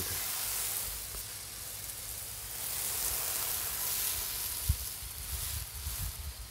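Garden hose spraying water onto a sand bed, a steady hiss of water falling on wet sand as the base is soaked to settle it. A brief thump about two thirds of the way in.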